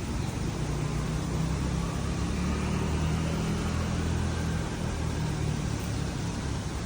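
Street traffic heard through a window: a motor vehicle's engine running with a steady low hum over a constant background hiss of traffic, easing off slightly near the end.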